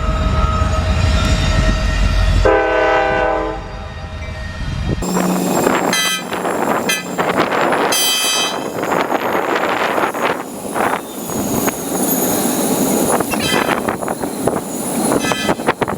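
Diesel locomotive rumbling, then a train horn sounding one chord for about a second. From about five seconds in, railcars rolling past with clattering and a few brief high wheel squeals.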